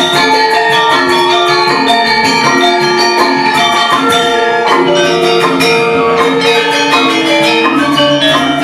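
Balinese gamelan music: struck bronze metallophones ringing in quick, overlapping notes over a steady run of sharp percussive strikes.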